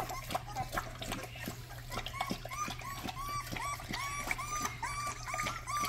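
Adult Rottweiler lapping water from a bowl in quick, regular laps. From about two seconds in, short high squeaks repeat about twice a second.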